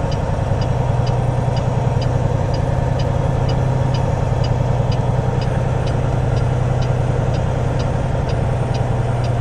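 Semi truck's diesel engine idling steadily, heard from inside the cab, with a light tick repeating a little under twice a second.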